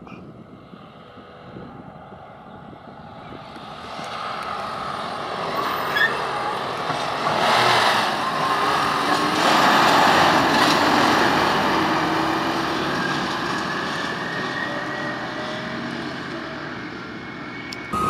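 Loaded Volvo A25 articulated dump truck driving past on gravel. Its diesel engine and tyres grow louder over several seconds, are loudest about halfway through, then slowly fade.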